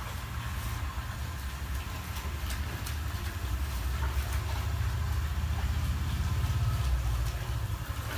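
A steady low rumble, swelling slightly near the end, with faint splashing and sloshing of wet cloth being worked in a tub of dye water.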